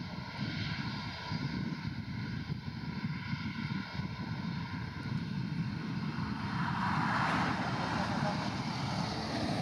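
Airbus A319's twin CFM56 jet engines at takeoff thrust as the airliner rolls down the runway and lifts off. The steady engine noise grows louder with a higher hiss about two-thirds of the way in.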